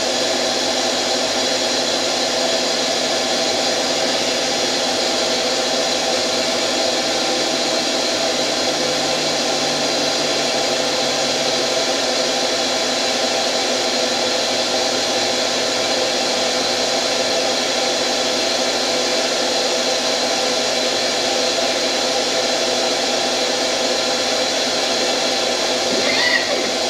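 CNC-converted lathe running steadily as it turns a rounded profile on the end of a knob: a steady machine hum with several constant whining tones from the spindle and drive motors.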